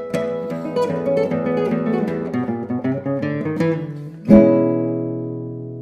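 Classical guitar played solo: a run of quick fingerpicked notes, then a loud strummed closing chord about four seconds in that rings on and slowly fades.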